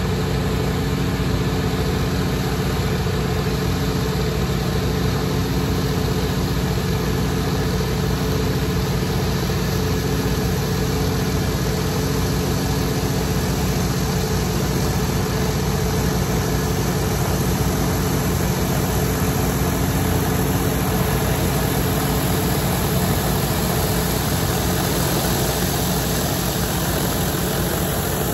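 Pressure washer running steadily at a constant loud level while concrete is being cleaned.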